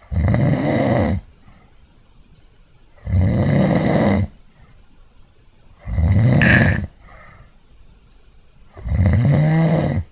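A person snoring: four loud snores about three seconds apart, each lasting about a second.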